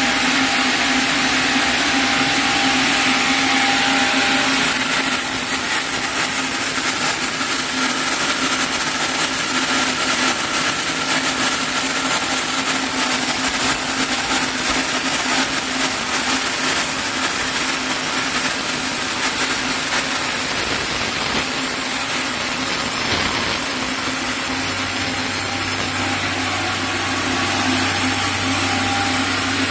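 A sawmill saw cutting lengthwise through a chinaberry (sendan) log, running steadily with a continuous rasp of blade in wood over the machine's hum. A deeper hum joins near the end.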